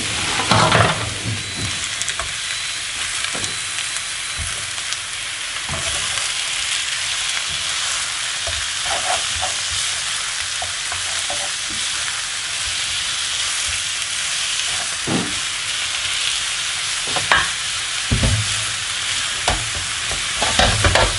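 Mutton chops frying with browned onions in a little oil in a non-stick pan: a steady sizzling hiss, with scattered knocks and scrapes as the chops are pressed in by hand and then stirred with a spatula, the loudest about a second in and again in the last few seconds.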